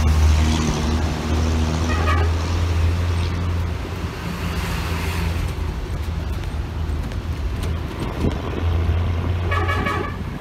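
A motor vehicle's engine running steadily with a low hum that eases off in the middle and comes back up near the end.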